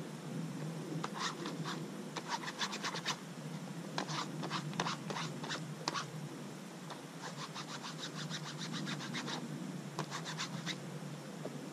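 Paper packet being handled and crinkled, in four runs of quick scratchy rustles.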